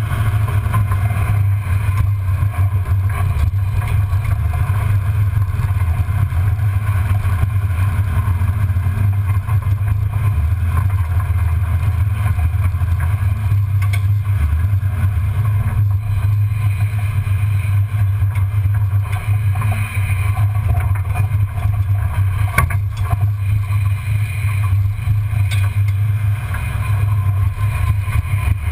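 1994 Ford Bronco's engine and drivetrain droning steadily at low speed, heard from under the chassis as the truck crawls over dirt and gravel. A few sharp knocks come through, mostly in the second half.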